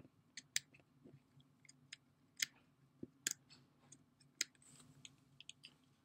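Scattered light plastic clicks and ticks, about a dozen at irregular intervals, from a cheap all-plastic retractable combination cable lock being worked by hand while its cable is jammed inside.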